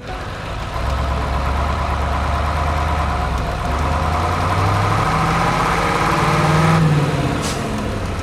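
Truck engine sound running, rising in pitch in steps from about the middle as if revving up to pull away, then dropping away near the end.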